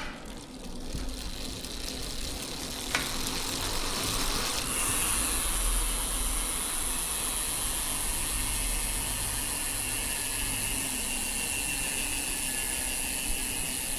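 Bicycle rear-wheel freehub spinning freely, its pawls making a fast, even ratcheting buzz. It builds over the first few seconds, with a single sharp click about three seconds in, then holds steady.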